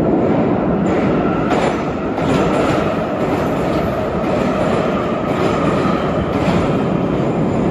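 Metro train passing close by in the subway tunnel: a loud, steady rumble of wheels on rails with faint clicks recurring at an even pace.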